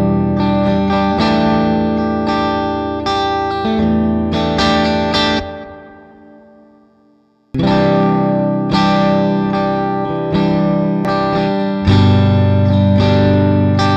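PRS SE Custom 24-08 electric guitar played through an amp, ringing chords struck about once a second, as a pickup demo. The first phrase rings out and fades away about six seconds in, then a new take starts abruptly about a second and a half later, the switch between the two pickup sets being compared.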